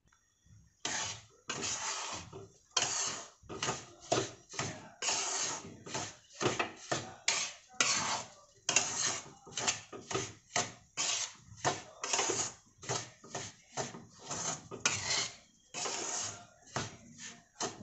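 Metal spatula scraping and stirring semolina and ghee against a stainless steel kadhai, in irregular strokes about two a second, starting about a second in. The semolina is being roasted in ghee and kept moving so it does not stick to the bottom and burn.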